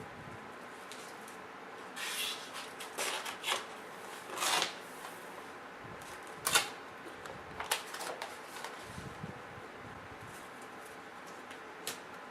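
Intermittent rustling and light clicks of hands handling a laptop LCD panel and its protective cover, with a sharp click about six and a half seconds in.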